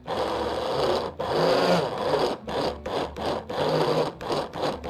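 Electric stick blender on its mini chopper attachment grinding boiled chickpeas into a paste, run in on-off pulses: two bursts of about a second each, then a run of quicker, shorter pulses.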